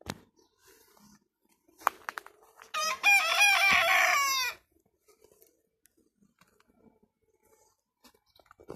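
A rooster crowing once: a single crow lasting nearly two seconds, starting about three seconds in. A few short, sharp sounds come just before it.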